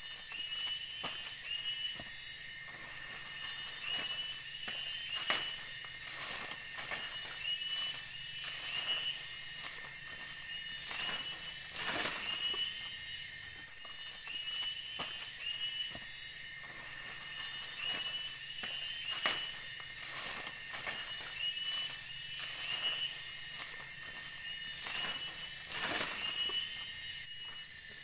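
Forest insect chorus: a steady high-pitched hiss with a short chirping call repeating about once a second, and scattered clicks through it.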